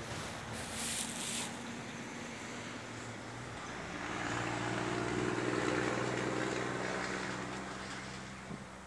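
A motor vehicle passing by, its engine and road noise swelling to loudest about five to six seconds in and then fading away, over a steady low engine hum.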